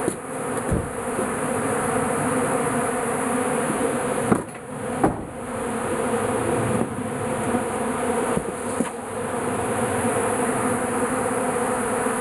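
Dense swarm of honeybees buzzing in a steady, loud hum as they crowd onto leftover beeswax and honey. Two sharp knocks sound about four and five seconds in.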